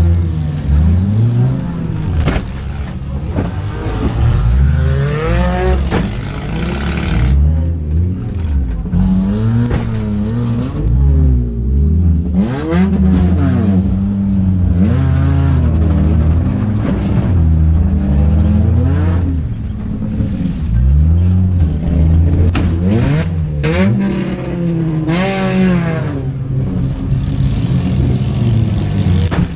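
Four-cylinder demolition derby cars revving hard, their engines rising and falling in pitch again and again, with occasional clanks and knocks from the cars.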